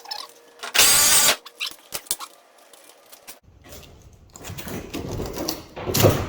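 Power tool cutting through the van's sheet-metal side to finish a window cut-out: a short burst of about half a second, a few clicks, then a longer run of cutting that grows to its loudest near the end.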